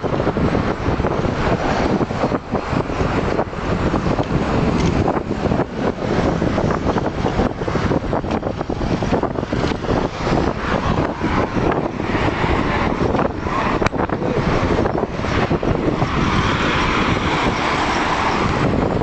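City street traffic heard from a moving bicycle, with wind rumbling on the microphone. A louder rushing hiss swells near the end as a vehicle passes close by.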